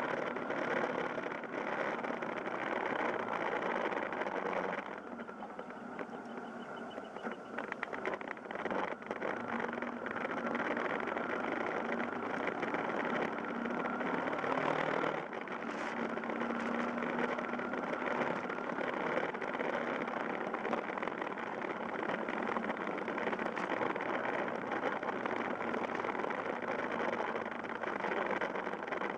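Yamaha Fazer YS250's single-cylinder engine running steadily as the motorcycle rides along, heard from the handlebars. It quietens for a few seconds about five seconds in, then picks up again.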